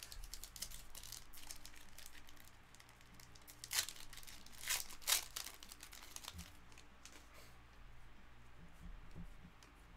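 Foil wrapper of a trading-card pack being torn open and crinkled by hand, with a few sharp, loud crackles around the middle.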